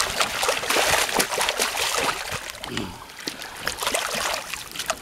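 A payara (vampire fish) thrashing at the water's surface as it is scooped into a landing net, a rapid run of splashes that is heaviest in the first two seconds.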